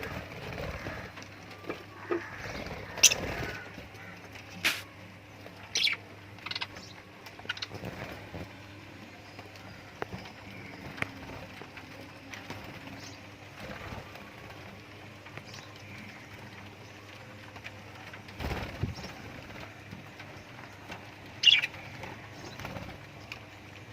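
Pet lovebirds chirping: short, sharp, scattered calls at irregular intervals, the loudest about three seconds in and again near the end, over a faint steady low hum.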